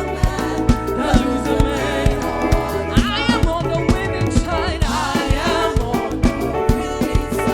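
Live gospel band music for African praise: drums keep a fast, steady beat under sustained keyboard chords. About three seconds in, a singer's voice comes in with bending vocal runs.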